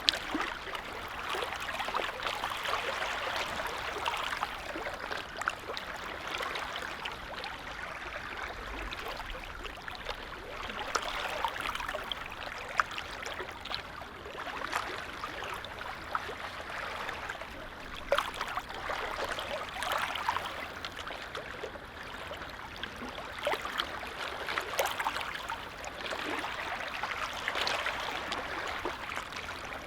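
Small lake waves lapping, a steady watery wash with many little splashes that swells and eases every few seconds.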